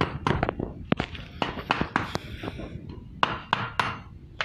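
A machete knocking on the end of a stainless racing muffler: a rapid, irregular series of sharp metal knocks, a dozen or so, with a short lull near the middle. The knocks are driving the muffler's fitting back into place after the glass wool packing has been refilled.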